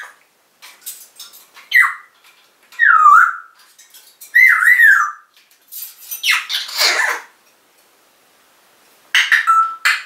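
African grey parrot calling in a string of short gliding whistles. A harsh squawk comes about six to seven seconds in, and near the end a call ends in a briefly held whistle note.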